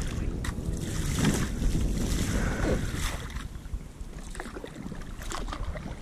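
Kayak paddle strokes: the blades dip and pull through calm water with light splashes and drips, over low wind noise on the microphone.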